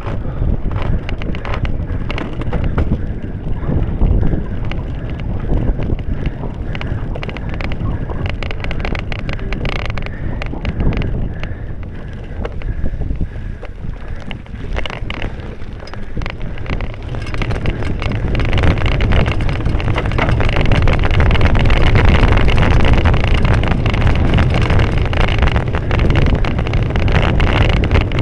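Wind buffeting the microphone of a cyclocross rider's camera, mixed with knocks and rattles from the bike jolting over rough grass and mud. The wind noise grows louder a little past halfway.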